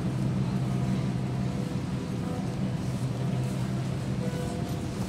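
Steady low machine drone with an even hiss above it, unbroken throughout.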